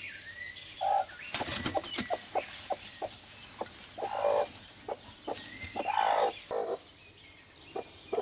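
Hen sitting on her eggs in a straw-lined nest, clucking in several short calls as eggs are taken from under her, with a brief burst of rustling about a second and a half in and small clicks and scrapes of straw and metal.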